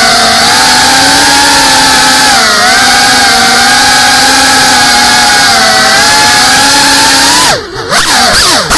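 GEPRC FPV quadcopter's motors and propellers whining steadily, close up on the onboard camera, the pitch wavering gently with the throttle. Near the end the throttle is cut: the whine drops away briefly, then swoops sharply up and down as power comes back.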